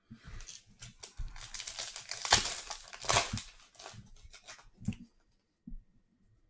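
Foil wrapper of a Bowman baseball card pack being torn open and crinkled, with the loudest rips about two and three seconds in, stopping about five seconds in.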